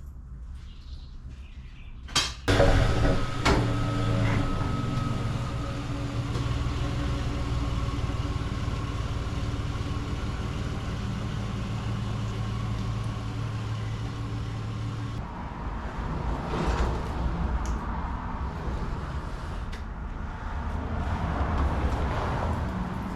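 A click, then a motor starts up and runs with a steady hum for about twelve seconds before stopping abruptly; an uneven rumble follows.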